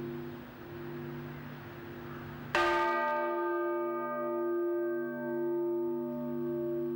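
Church bell: a low steady hum of bell tones, then about two and a half seconds in a bell is struck once and its many tones ring on, slowly fading.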